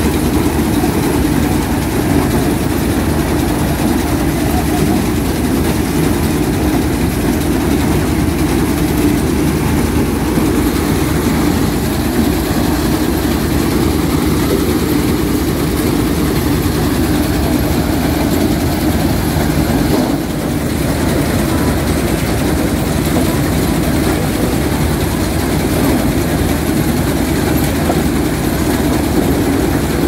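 NSG 930 combine harvester running steadily under load, its engine and corn header working together, with the header's auger turning and feeding in cut dry corn stalks.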